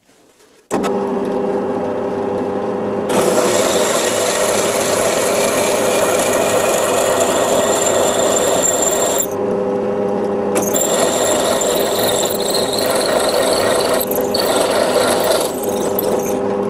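Bench drill press running and a twist drill cutting a hole into the side of a steel part. The motor's steady hum starts suddenly, and from about three seconds in a louder, harsher cutting noise rides over it. The cutting noise eases off for about a second around the middle, then resumes until the press stops.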